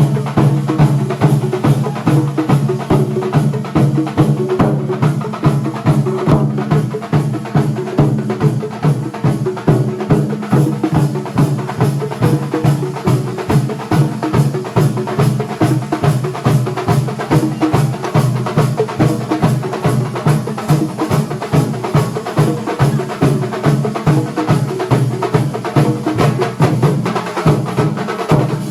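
Kerala thambolam drum ensemble playing a fast, continuous rhythm of many drum strikes, with a heavy low drum pulse underneath.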